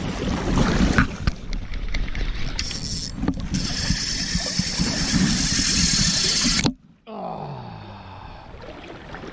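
Loud crackling, rustling noise of an angler fighting a hooked king salmon in a river: clothing and gear rubbing close to the microphone over moving water, thick with sharp ticks. Just before seven seconds in it cuts off abruptly, and a quieter noise follows.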